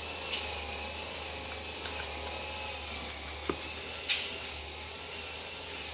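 Metal parts of a Bosch diesel injection pump's timer being fitted into the timer housing by hand: three short metal clicks over a steady workshop hum.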